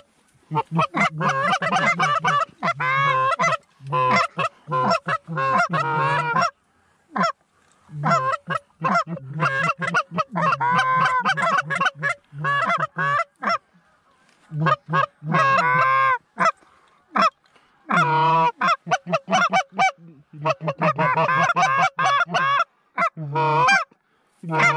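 Canada goose calls blown hard and fast, imitating honkers: rapid runs of honks and clucks in bursts of a few seconds with short pauses between, calling to an approaching flock of Canada geese to draw them in.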